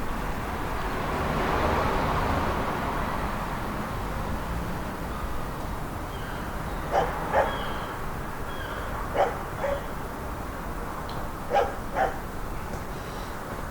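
Dog barking in pairs of short barks, three times in the second half, over a steady background of distant traffic. A vehicle passes in the first few seconds.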